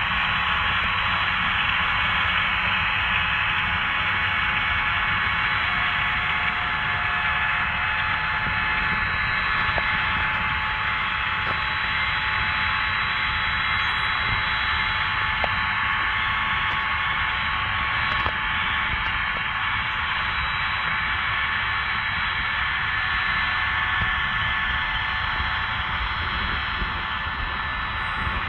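John Deere 9420R tractor working in the field, heard as a steady hiss over a low, fluttering rumble, with a few faint constant whine tones. It holds at one level throughout.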